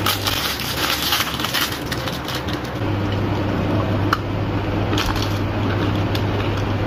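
A red plastic candy wrapper crackles densely as it is torn open by hand. A few separate sharp crackles and crunches follow as the candy is bitten and eaten.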